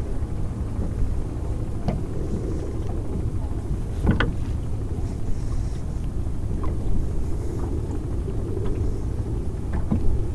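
Boat engine running steadily, with a few short, sharp clicks over it, the clearest about four seconds in.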